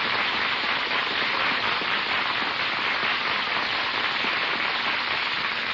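Studio audience applauding: many hands clapping in a steady, dense patter.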